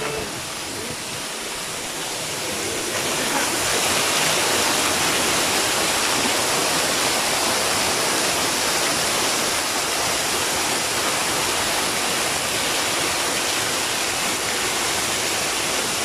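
Waterfall: water sheeting and splashing down a moss-covered rock face beside a narrow cascade, a steady rush of falling water. It grows louder about three seconds in and then holds steady.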